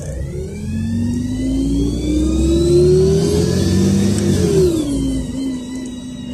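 LiAZ 5292.67 city bus, with a YaMZ-53624 natural-gas engine and ZF 6AP-1200B automatic gearbox, accelerating, heard from inside the bus. The engine rumble and drivetrain whine rise in pitch for about four seconds, then drop sharply as the gearbox shifts up, leaving a steady lower whine.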